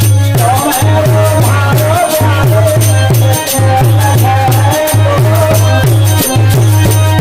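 Indian folk music: a deep, steady drum beat with shaken rattle-like percussion, and a wavering melody line that comes in about half a second in.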